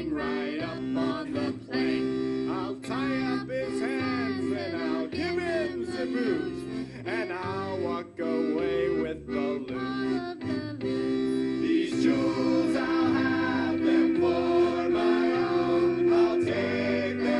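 A song with several singing voices over a bass line that repeats in steady blocks and a plucked guitar, sung for singing puppets. The singing grows fuller in the second half.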